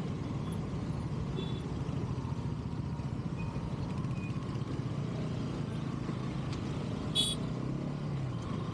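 Bajaj Pulsar NS200's single-cylinder engine running steadily under way in traffic, with road noise. Its note sinks slightly near the end as the bike slows.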